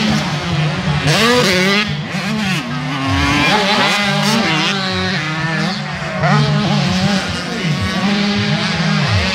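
Several motocross dirt bikes racing, their engines revving up and dropping back again and again, overlapping with each other.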